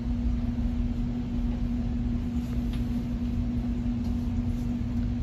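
Steady background hum: one constant low tone over a low rumble, with no other events.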